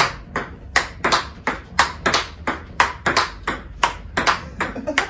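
Table tennis rally: the celluloid/plastic ball clicking sharply off the table and off rackets faced with XIOM Omega VII China tacky-tension rubber, in an even run of about four hits a second.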